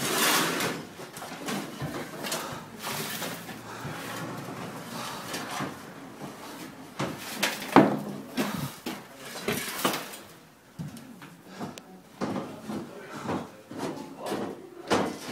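Irregular knocks, clatter and scraping of debris being cleared by hand, with hand tools working on a concrete floor in a gutted, tsunami-damaged room; a sharper knock stands out about eight seconds in.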